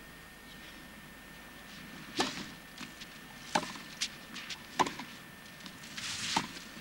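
Tennis ball struck by rackets in a rally on a clay court: four sharp pops about a second and a half apart, starting about two seconds in, with lighter ticks between them.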